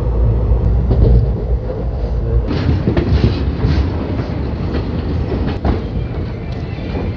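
Passenger train running on the rails: a heavy low rumble, then from about two and a half seconds in a lighter rattle with scattered clacks of wheels over rail joints.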